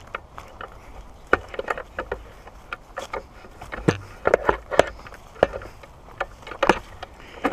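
Footsteps on a dirt trail strewn with dry leaves and twigs: irregular crunches and snaps.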